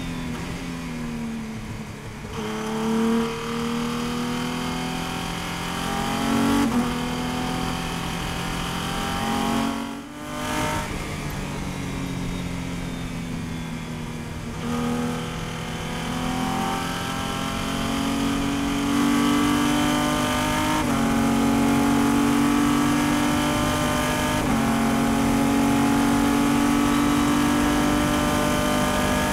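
Sports-prototype race car's engine heard from the cockpit under hard acceleration. Its pitch climbs and drops abruptly at each upshift several times, then holds high near the end in top gear at full throttle, with a hiss of rushing air underneath.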